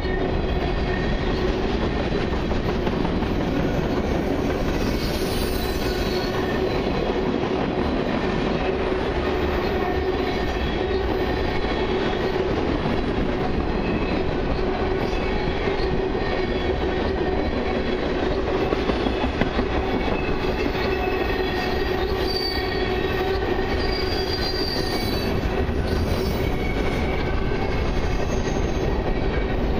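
Freight train's tank cars and boxcars rolling past at steady speed, steel wheels running on the rails, with a steady hum and brief high-pitched wheel squeals now and then, most clearly in the last third.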